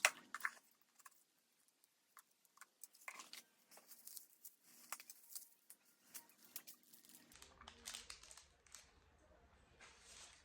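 Packaging being handled and opened: irregular crinkling and tearing of wrapping, with small clicks and taps.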